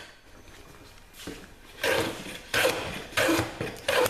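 Hand plane shaving the edge of a reclaimed-timber board held in a vise. After a quieter first half, four short scraping strokes follow in quick succession, each taking off a thin shaving.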